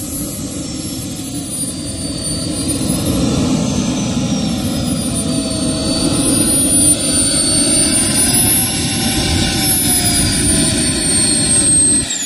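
Small gas-turbine engine of a HEBU Mephisto RC model jet running at low power while it taxis: a high whine that wavers slowly up and down in pitch over a steady rushing exhaust, growing louder as the jet comes closer.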